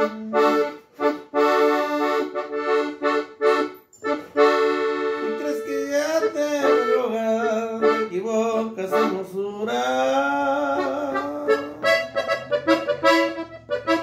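Solo accordion playing a melody in the key of D, phrases of held chords broken by quick runs of short notes.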